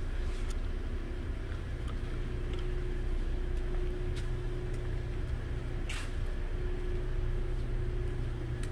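A steady low mechanical hum with a faint steady higher tone over it, and a faint click about six seconds in.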